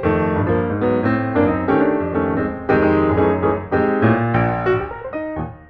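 Background piano music, a steady run of notes with held chords beneath.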